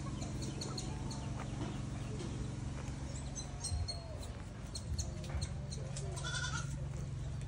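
A goat bleating, with a short high bleat near the end, over a steady low hum.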